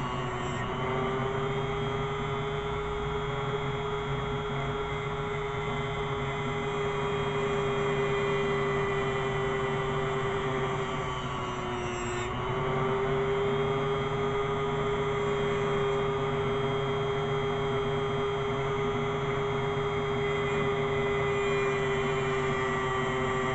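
Dremel rotary tool held in a vise, running with a steady whine while a knife blade's edge is ground against it. Its pitch sags briefly near the start and about halfway through.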